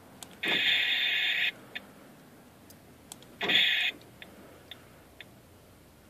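Mongoose car alarm siren giving off bursts of static-like hiss: one of about a second, then a shorter one about two seconds later, with faint ticks in between. The hiss comes and goes at random, a fault in the alarm that disconnecting the earth wire and the battery has not stopped.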